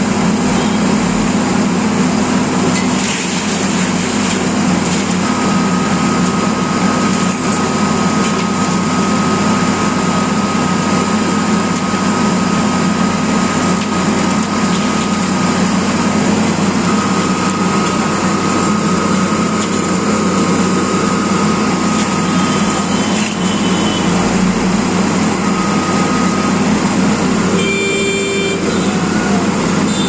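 Diesel engines of an asphalt paver and a dump truck running steadily at a loud, even drone while asphalt is unloaded into the paver. A thin high whine comes and goes through the middle, and a brief pitched tone like a horn sounds near the end.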